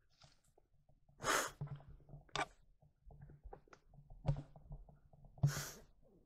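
Footsteps through dry leaf litter and twigs, with scattered small crackles and the low bumping of a handheld camera. Two short, loud hissing rushes of noise right at the microphone stand out, about a second in and near the end.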